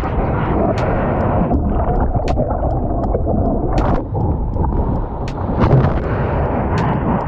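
Heavy wind rumble on the microphone over sea water washing against a kayak, with a few scattered sharp knocks.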